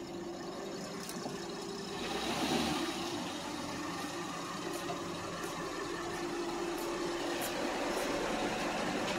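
Parked Ford police SUV idling, a steady engine hum that grows louder from about two seconds in, with a few faint ticks now and then.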